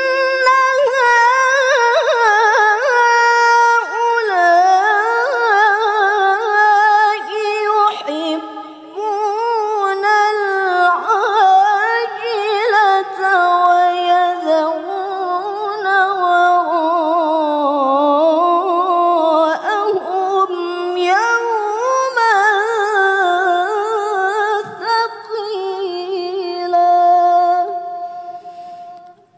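A woman reciting the Quran in the melodic tilawah style, amplified through microphones: long held notes with wavering, ornamented turns of pitch, one unbroken line except for a short pause about eight seconds in, dying away just before the end.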